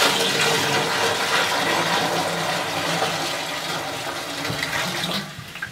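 Ford 2712E industrial diesel running with a loud rushing noise over its steady beat, starting abruptly and dropping away about five seconds in.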